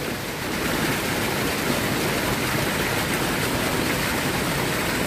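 Water pouring over a small concrete dam and churning into white foam in the pool below: a steady, even rush of whitewater.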